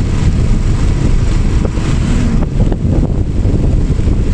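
Heavy wind buffeting the microphone over the steady noise of a vehicle travelling at speed along a highway.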